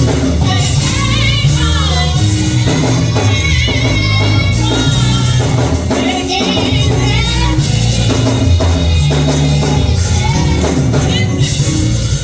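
Gospel music: singing voices over a band with a strong bass line and steady percussion.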